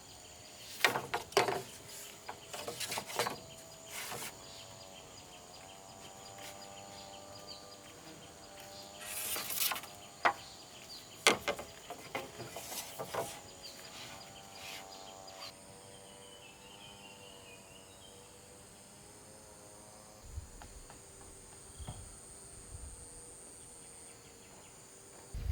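Insects buzzing steadily outdoors, with a scattering of sharp knocks over the first half and a wavering droning tone that stops a little past halfway.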